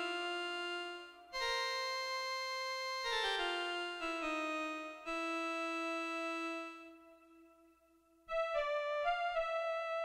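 Korg Poly 800 analog polysynth playing a keyboard patch: quick descending runs of notes into held chords that fade out, a short pause, then a new chord with a slight wobble in pitch.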